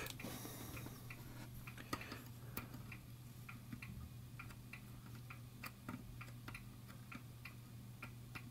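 Faint, irregular small clicks and ticks of metal tweezers and a soldering-iron tip against a circuit board while a tiny SMD diode is being desoldered, over a steady low hum.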